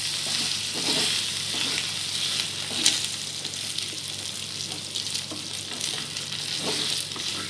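Mutton pieces and red chilli powder sizzling in hot oil in a black kadai while being stirred with a spatula, with occasional scrapes against the pan. The meat is already tender with its water cooked off, frying in its released oil to brown.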